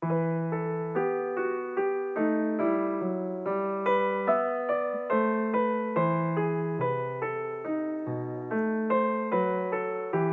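Solo piano music: an even run of single notes, about two or three a second, each struck and then fading.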